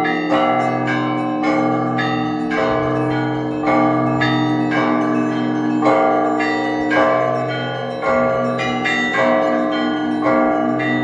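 Russian Orthodox monastery bells ringing: many bells of different sizes struck in a running rhythmic peal, fresh strikes about twice a second over the lingering hum of a deep bell.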